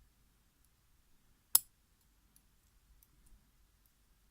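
Small parts of a disassembled pin-tumbler lock being worked with a dental pick: faint light ticks and one sharp click about one and a half seconds in.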